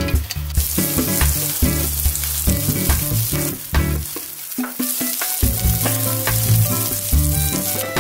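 Sliced onion and garlic sizzling in hot oil in a nonstick frying pan while they are stirred with a silicone spatula.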